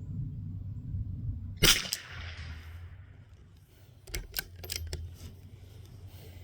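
A single .22 LR bolt-action rifle shot about a second and a half in, sharp and with a short ringing tail, followed a couple of seconds later by a handful of quick clicks of the bolt being cycled.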